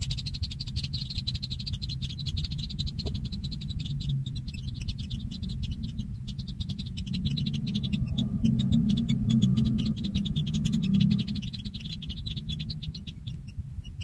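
A dense chorus of fast, high ticking calls runs steadily throughout, over a low rumble that grows louder in the middle and fades near the end.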